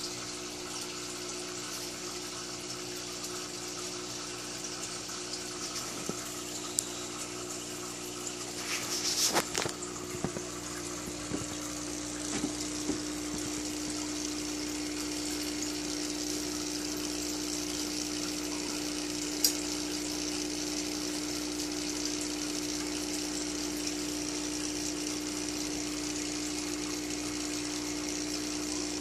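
Aquarium equipment running: a steady motor hum with continuous bubbling and trickling water from the air stone and filters. A short cluster of knocks comes about nine seconds in, and a single sharp click near the middle.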